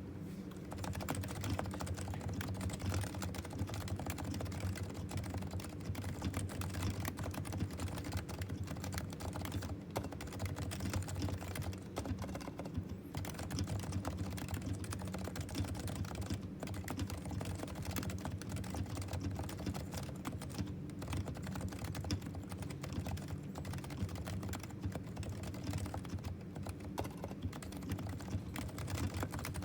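Continuous fast typing on a Topre Realforce TKL R2 keyboard with silent 45 g Topre electrostatic capacitive switches: a dense, steady run of soft key presses.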